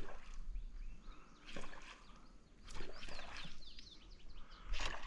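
A large topwater lure being worked across the surface, throwing several splashy bursts of water a second or two apart, a commotion meant to sound like prey in trouble. Birds chirp briefly around the middle.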